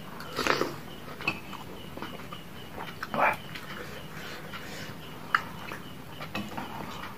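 Close-up eating of bakso noodle soup: a loud slurp of noodles from a spoon about half a second in, wet chewing, and another slurp about three seconds in. A metal spoon clinks once against the ceramic bowl about five seconds in.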